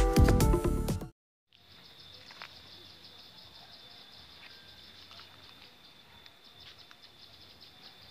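Electronic intro music that stops about a second in, followed by quiet outdoor ambience dominated by a steady, high, rapidly pulsing insect trill.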